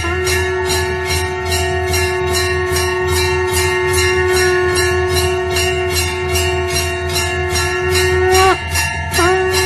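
Temple puja bells ringing in an even rhythm, about two to three strokes a second, over a continuous droning tone; near the end the drone dips in pitch, breaks off for a moment and comes back.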